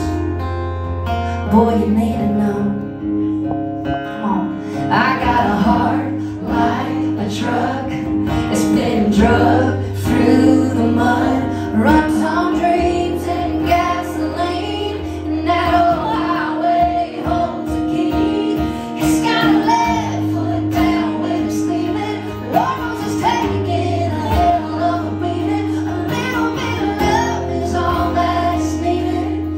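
A woman singing a country song live into a handheld microphone, with instrumental accompaniment; the first few seconds are instruments alone before the voice comes in.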